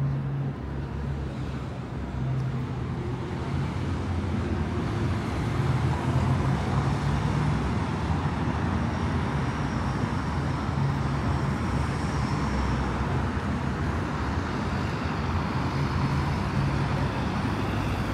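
Street ambience with car traffic going by: a steady rush of engines and tyres with a low hum that comes and goes.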